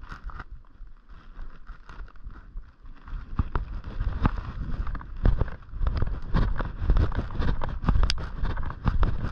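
Footsteps on a snowy path, a quick irregular run of crunches and clicks, with wind buffeting the microphone, which grows louder about three seconds in.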